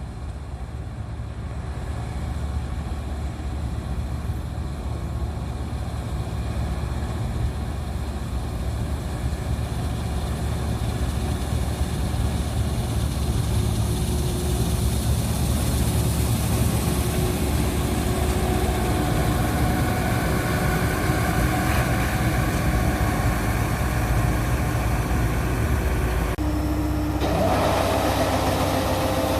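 Wheat harvesting machine running steadily, a deep engine sound that slowly grows louder with a faint whine coming in partway through; its sound changes abruptly a little before the end.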